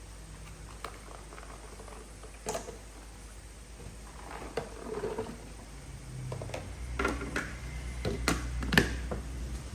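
Scattered light clicks and knocks over a steady low hum, more frequent in the second half.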